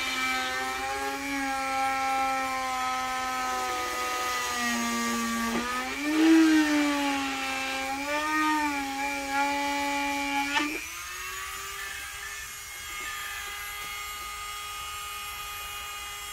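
Dremel rotary tool with a spiral cutting bit cutting holes in a console panel: a high motor whine whose pitch sags and wavers as the bit bites. About ten seconds in it rises and settles into a quieter, steadier whine as the tool runs with less load.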